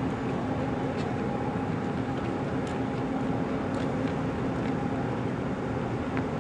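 Steady drone of a Great Lakes bulk freighter's diesel engines and machinery as it passes close by: an even rumble with a steady low hum and a fainter higher tone.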